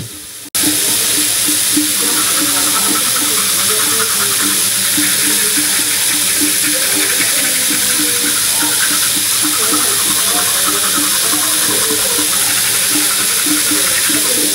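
Bathroom tap running steadily into the sink, coming on abruptly about half a second in, with a low repeating pulse underneath.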